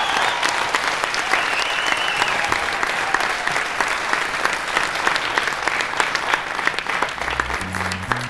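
Studio audience applauding at the end of a dance routine, a dense, steady clapping. Low music notes come in near the end.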